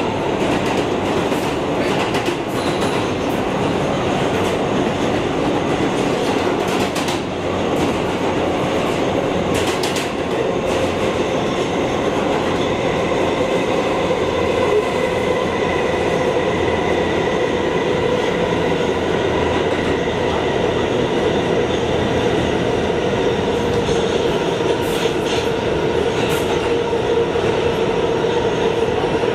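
Kawasaki R211T subway train running at speed, heard from inside the car: a steady rumble of wheels on rail with a constant whine. A few clacks come through over the rail joints.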